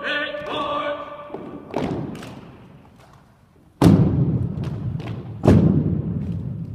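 A drill team's drawn-out shouted command ends about a second in. Then the team strikes the floor in unison: two lighter thumps, then two loud thumps about a second and a half apart, each echoing through a large hall.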